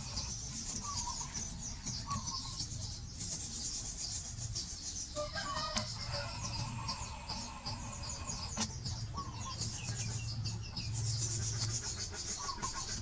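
Outdoor yard ambience: chickens clucking on and off over a steady, high, pulsing chorus of chirping insects, with one louder call about five seconds in.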